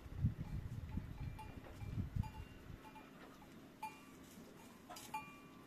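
Goat bell clanking as a goat grazes: short metallic rings at irregular intervals, a few seconds apart, with some low rumbling in the first couple of seconds.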